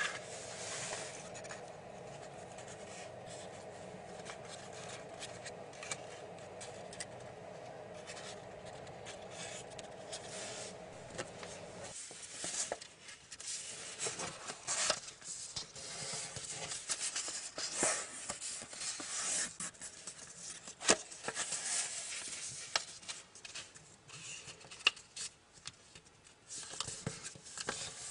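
A square sheet of origami paper being handled and folded: irregular rustling, crinkling and sharp creasing scrapes. For about the first twelve seconds a steady low hum lies under fainter handling, and the hum stops abruptly.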